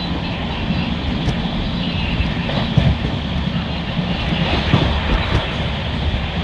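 Indian Railways express passenger coach running on the line: a steady rumble of wheels on rails with rushing air, and a few short knocks from the track.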